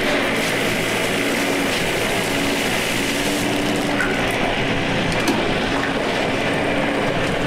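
Garden hose with a spray nozzle washing down a large yellowfin tuna on a wooden cleaning table: a steady rush of spraying water. A low hum comes and goes underneath.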